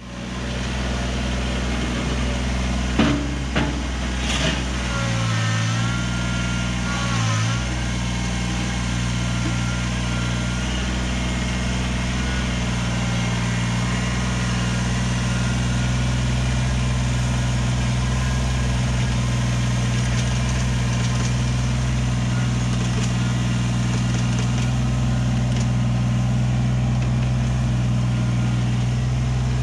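Diesel engine of compact earthmoving equipment running steadily, with a few sharp knocks about three to four seconds in and two brief dips in the engine note soon after.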